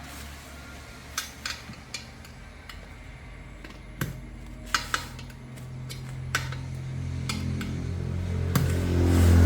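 Scattered metallic clinks and taps of tools being handled, over a low mechanical hum that grows louder through the second half and cuts off suddenly at the end.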